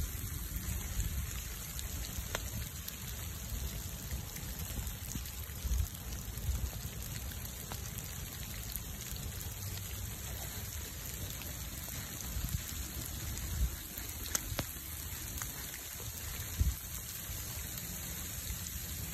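Rain falling in a steady hiss around a wood bonfire, with a few sharp pops from the burning logs and low uneven rumbling underneath.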